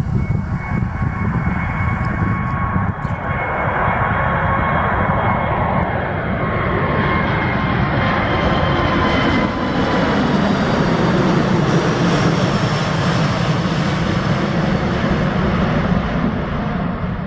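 Airbus A380 jet engines at takeoff power, loud and steady, with a high whine that dips slightly in pitch a few seconds in as the aircraft passes.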